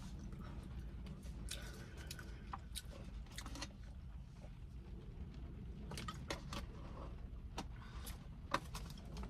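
Quiet car cabin with a steady low hum, and scattered small clicks and taps as a plastic water bottle and food are handled.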